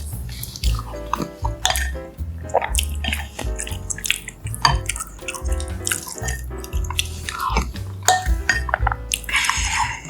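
Wet eating sounds, chewing and short clicks, over background music with a steady bass pattern. A noisy wet slurp comes near the end.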